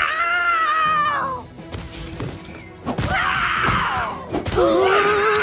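Cartoon lion characters' voiced roars and cries over background music: a drawn-out falling cry at the start, a rough roar about three seconds in, and a short held cry near the end.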